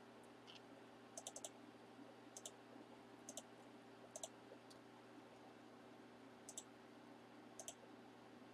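Faint computer mouse clicks over a low steady hum: a quick triple click about a second in, then double clicks roughly every second, with a pause in the middle.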